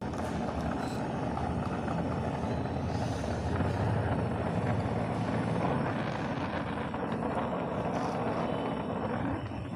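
Oxy-acetylene welding torch flame burning with a steady, continuous rushing noise.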